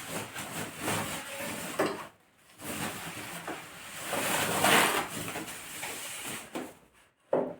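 Keyboard packaging being handled as the keyboard is lifted out of its box: rustling and sliding in uneven swells, with a short sharp knock near the end.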